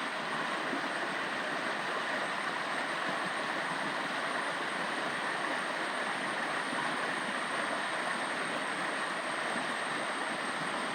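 Stream water flowing, a steady unbroken rush, with a thin steady high tone above it.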